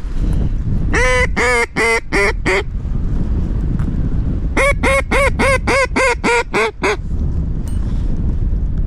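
Two runs of mallard hen-style quacks: about five, then after a short pause about nine more at roughly four a second. Steady wind noise on the microphone underneath.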